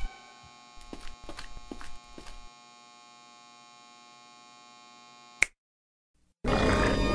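A faint steady electrical hum fills a pause, with a few short soft sounds in the first couple of seconds and a sharp click about five and a half seconds in. After a second of silence, music comes back in loudly near the end.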